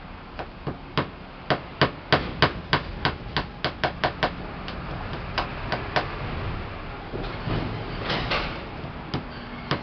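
Small hammer tapping nails into a 10 mm plywood board, about three quick taps a second. The tapping stops for a few seconds after about six seconds and starts again near the end.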